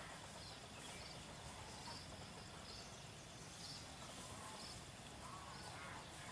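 Quiet outdoor garden ambience: a steady low hiss with short, high chirps repeating about once a second.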